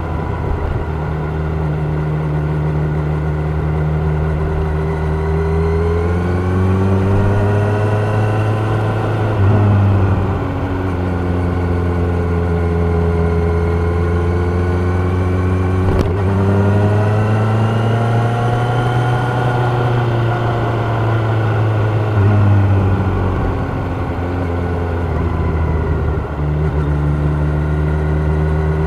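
Kawasaki Ninja 1000's inline-four engine running under way. Its pitch rises twice under acceleration and drops back each time, as at a gear change. There is a single sharp click about halfway through.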